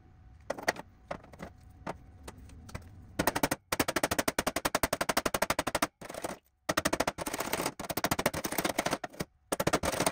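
A hammer striking a steel piece laser-welded to a steel welding cart, metal on metal, to break the weld loose. A few separate blows, then from about three seconds in a long run of rapid blows, several a second, broken by a few short gaps.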